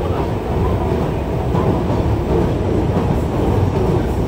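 Yokohama Municipal Subway Blue Line 3000A car with Mitsubishi GTO-VVVF traction equipment running, heard from inside the car: a steady rolling noise of wheels on rail, heaviest in the low range.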